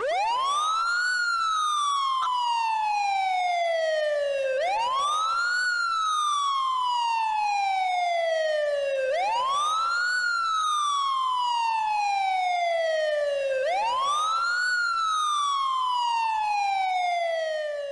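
Siren wailing in slow cycles, each a quick rise in pitch followed by a long slow fall, about every four and a half seconds.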